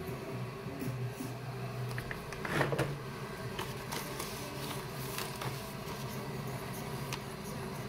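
Soft background music, with light clicks and a rustle of grocery packaging and a cardboard egg carton being handled and opened on a counter; the loudest rustle comes about two and a half seconds in.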